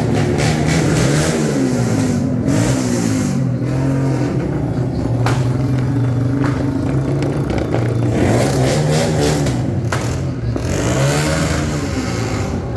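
Vehicle engines running and revving up and down, with scattered sharp firecracker pops.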